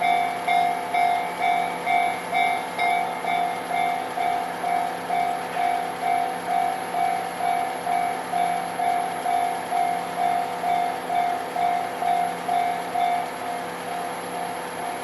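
Japanese railway level crossing warning bell ringing, an electronic clang repeating evenly about twice a second, growing fainter near the end.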